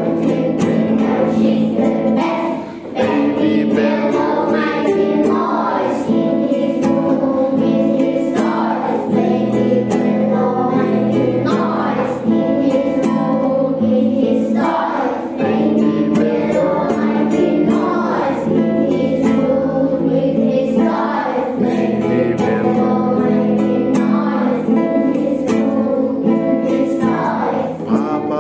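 A group of young children singing a calm, simple nursery song together, with an acoustic guitar strummed along.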